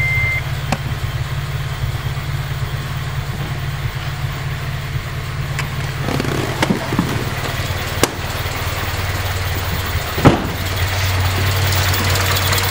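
2005 Acura RSX's four-cylinder engine idling with a steady low rumble, an idle the owner calls rough. A few sharp clicks sound over it, the loudest about ten seconds in.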